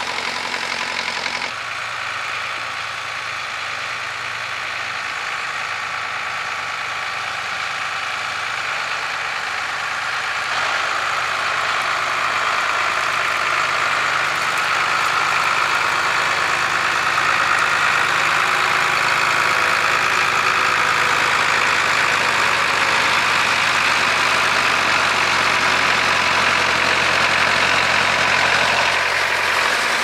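Tractor engine running steadily under load while ploughing. It grows louder about ten seconds in and stays loud.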